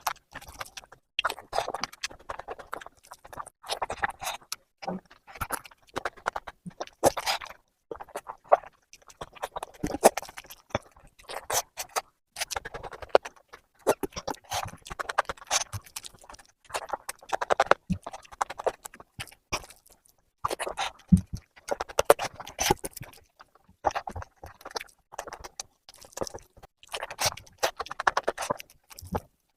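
Close-miked, wet chewing and lip-smacking of a person eating an oily curry, with irregular sharp mouth clicks and smacks coming several times a second.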